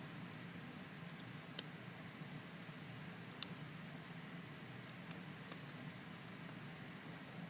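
Lock pick and tension wrench working the pins of a stainless steel padlock: a handful of faint, sharp metallic clicks, the loudest about three and a half seconds in.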